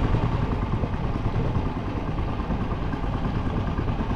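An engine running steadily with a fast pulsing rumble.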